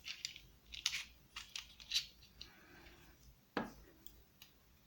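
Light metallic clicks and scrapes of a pin-tumbler lock cylinder's pins and springs being worked with small metal tools, a handful of short irregular ticks with a stronger click about three and a half seconds in.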